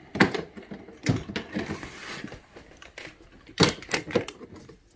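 Latches of the frame around an LG LCD TV panel being unclipped by hand: a string of irregular sharp clicks and snaps as the frame is worked free.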